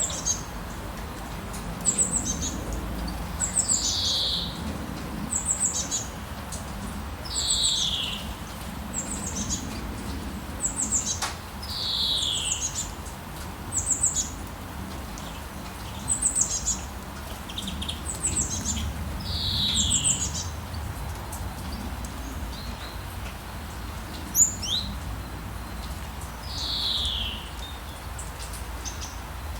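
Songbirds singing in the rain: one bird repeats a short downward-sliding whistle about every four seconds, alternating with quick high chirps, over a steady hiss of rainfall.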